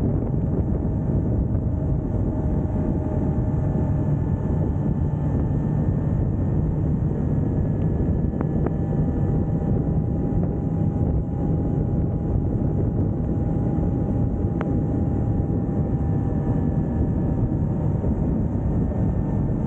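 Motorbike engine running steadily at cruising speed, a constant hum with wind noise on the microphone.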